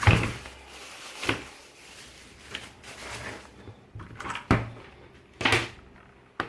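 Keyboard box and packaging being handled as a mechanical keyboard is unpacked: several separate knocks and thuds, the loudest right at the start, others about a second in and twice in the second half.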